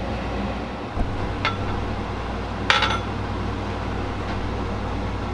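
Two ringing clinks of kitchen dishware, a small one about a second and a half in and a louder one near the three-second mark, after a soft thump, over a steady low hum.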